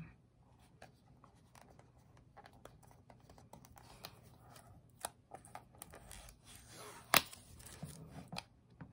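Small white cardboard box being handled and opened by hand: faint rustling and scratching of card under the fingers with scattered small clicks, one sharper click about seven seconds in.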